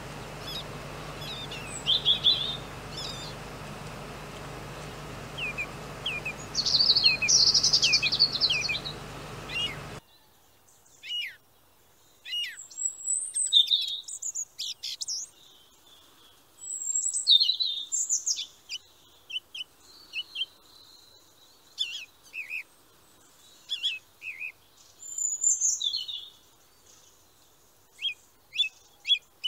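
Small songbirds chirping and singing: many short high chirps and quick sweeping whistled notes, with no steady rhythm. About ten seconds in, a steady background hiss stops, and the birdsong goes on over a quiet background.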